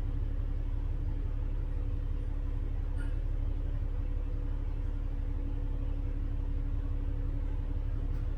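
Double-decker bus heard from inside, running steadily: a constant low engine and road rumble with a steady drone, and one faint click about three seconds in.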